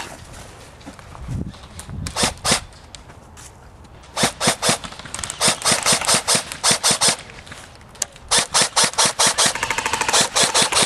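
Airsoft guns firing in strings of rapid shots: a few single shots, then several bursts of about six shots a second, and a faster, longer run near the end.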